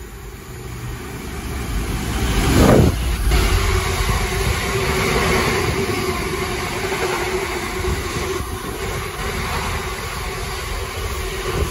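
A freight train of open box wagons runs through the station at speed. The front of the train passes about three seconds in, the loudest moment, with a falling pitch. Then the long line of wagons keeps rolling past with a steady rumble and a held hum.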